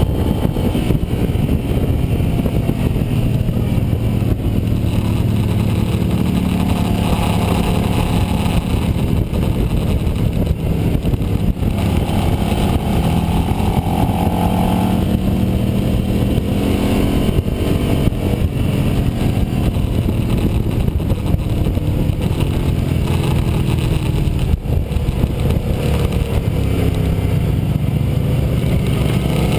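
Sport motorcycle engine running hard at track speed, its pitch rising and falling with throttle and gear changes, under loud wind rush on the camera microphone.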